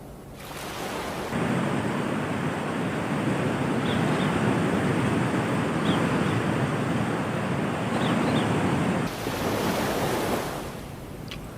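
Ocean surf washing onto a beach, a steady rush that cuts in suddenly about a second in and dies away near the end.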